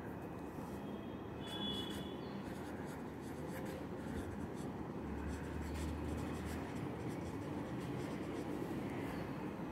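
Marker pen writing on paper: faint scratching strokes as a line of words is written out, over a low steady background noise.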